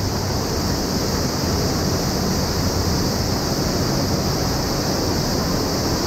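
Waterfall pouring into a rock pool inside a cave: a loud, steady rush of falling water.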